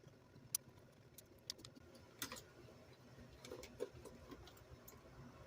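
Faint, scattered light clicks and taps of small hard parts and tools being handled during RC car repair work, with a small cluster about two seconds in and a few more past the middle.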